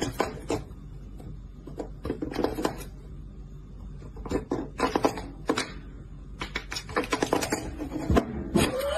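Bursts of rapid clicking and clattering: a cat knocking and rattling a plastic desk cable-grommet cover from underneath through the hole. A short rising sound comes near the end.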